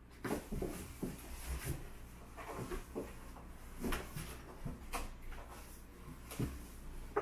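Two cats play-fighting in a cardboard scratcher box: irregular bumps, scrapes and scratching of bodies and claws against the cardboard.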